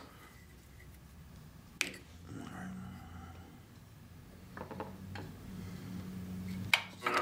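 Faint low hum with a few light clicks and taps, the lathe standing still between shellac coats.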